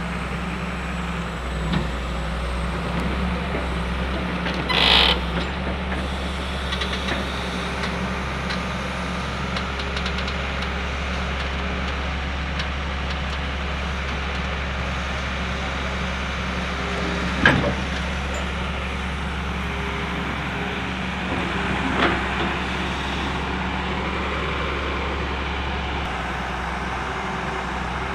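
Wheeled excavator's diesel engine running steadily, with three short knocks over it, the loudest about two-thirds of the way through.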